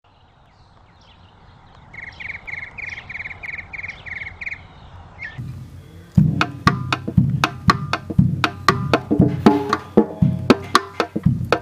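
Drum played with a wooden stick held flat across the head: from about six seconds in, a quick, irregular run of sharp, woody cross-stick clicks and drum strokes. Before that, a faint, quick run of about nine high-pitched pulses.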